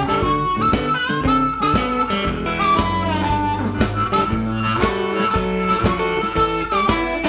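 Amplified blues harmonica played into a hand-cupped microphone, with bent, sliding notes over guitar accompaniment and a steady beat.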